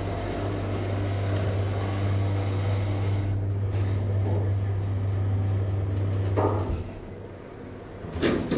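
Hydraulic elevator's pump motor humming steadily as the car rises, then cutting off as the car reaches the floor. A knock comes as it stops, and a loud clunk of the door near the end.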